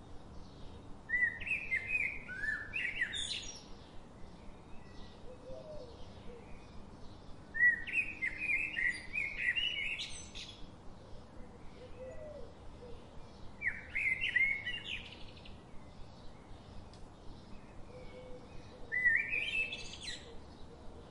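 Birdsong: a songbird sings a quick warbled phrase about every six seconds, four times, over faint short chirps repeating about twice a second.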